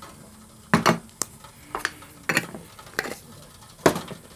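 A metal spoon clinking against the sides of a stainless-steel mug as thick, simmering glaze is stirred, about six sharp clinks at uneven intervals.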